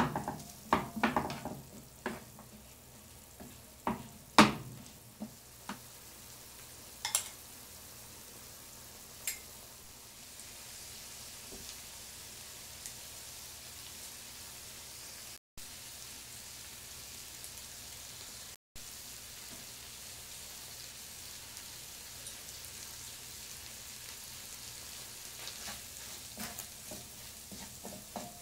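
Chickpeas frying in oil with a steady faint sizzle. A wooden spatula knocks and scrapes against the pan several times in the first few seconds and again near the end.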